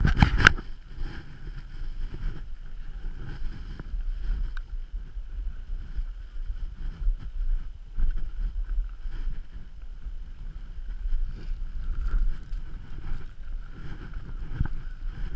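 Wind buffeting a helmet-mounted GoPro's microphone as a gusting low rumble, with a loud knock against the camera at the very start.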